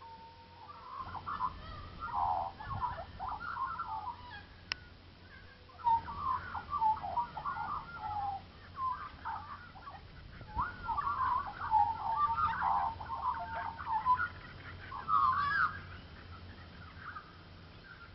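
Bird calls: fast, chattering, warbling notes in several runs, with a brief pause about five seconds in. The calling dies away a couple of seconds before the end.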